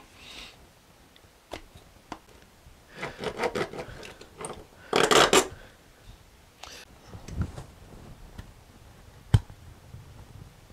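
Thick plastic case being cut by hand tools: a few sharp clicks, a quick run of cutting strokes about three seconds in, and a loud short rasp about five seconds in.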